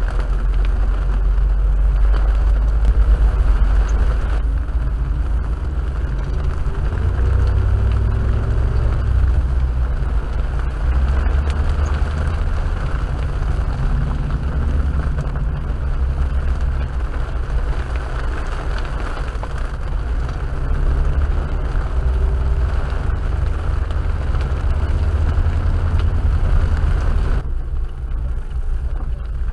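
Engine drone and tyre noise heard from inside a car on the move on a rain-soaked road. The low drone swells and eases over a steady wash of road and rain noise.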